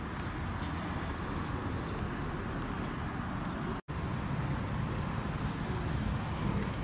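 Steady outdoor background noise with a low rumble, broken for an instant by a dropout a little under four seconds in.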